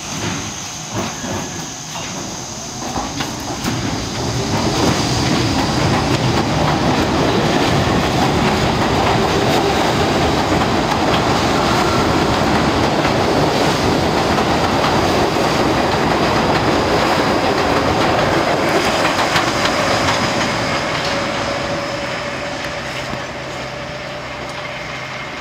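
R42 subway train pulling out and accelerating past, its wheels clattering over the rail joints with some high-pitched wheel squeal. The noise builds over the first few seconds, stays loud, then fades gradually from about twenty seconds in as the train moves away.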